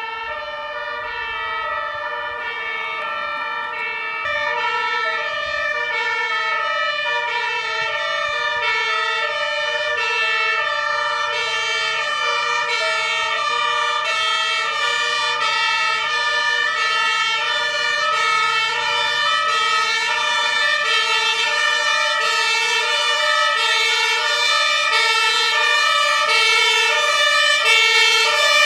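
Two-tone sirens of several German fire engines, alternating high and low, their patterns out of step with one another. They grow steadily louder as the convoy approaches.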